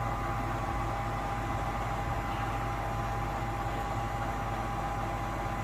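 Delivery lorry's engine running steadily, with a steady high whine over a low drone, as its truck-mounted crane lifts bulk bags of builder's sand.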